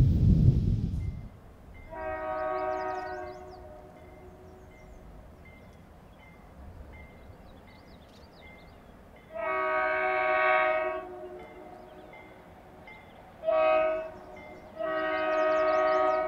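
The low rumble of a passing train cuts off about a second in. Then an unseen locomotive's multi-chime air horn sounds in the distance in the grade-crossing pattern of long, long, short, long, the sign of a train approaching a crossing.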